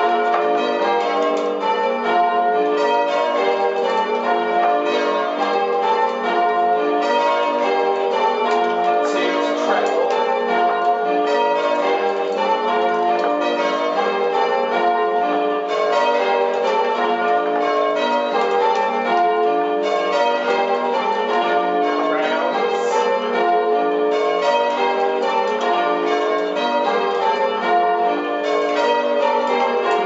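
Change ringing on a ring of six church bells with a 13 cwt tenor: the bells strike one after another in a steady rotating sequence, their tones overlapping without a break.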